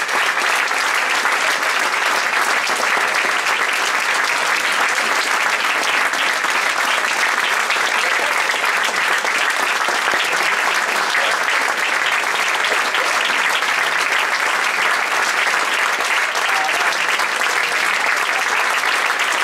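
Theatre audience applauding: dense, even clapping at a steady level without a break.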